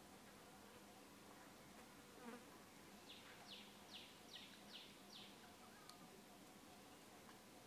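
Near silence: quiet outdoor background. About three seconds in comes a run of six short, high, falling chirps, about three a second.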